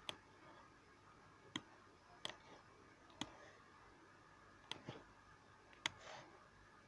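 Faint computer mouse-button clicks, about seven sharp single clicks at irregular intervals, made while dragging guidelines in a drawing program.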